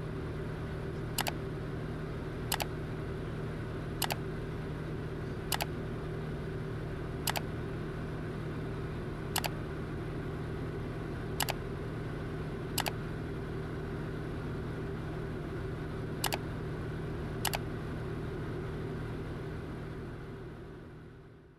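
Steady drone of a light piston aircraft's engine and propeller heard from inside the cabin, with about ten sharp clicks at uneven intervals. It fades out near the end.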